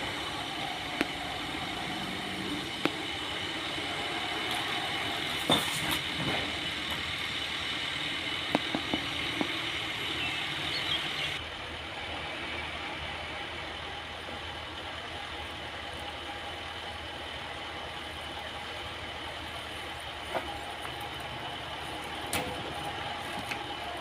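Heavy sawmill machinery running steadily with a high whine. About eleven seconds in, the whine and high hiss drop away abruptly, leaving a lower steady running sound with a few sharp knocks.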